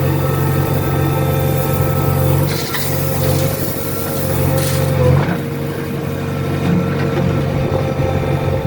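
JCB 3DX backhoe loader's diesel engine running steadily, heard from inside the cab, with brief changes in its note about two and a half and five seconds in.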